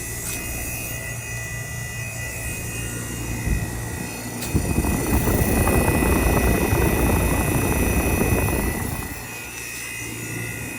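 Trane outdoor air-conditioning condenser running with a steady hum from its compressor and fan, a unit the owner says does not sound good and, with its suction line barely cold, takes for a dying unit. From about four and a half to nine seconds in, a louder rough rushing noise covers it.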